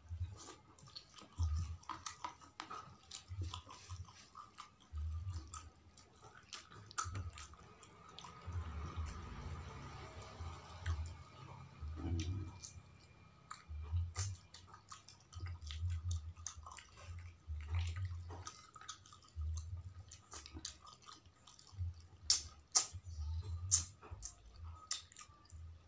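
People eating snapper-head curry and rice with their hands: close chewing, with many small clicks and low thumps about once a second.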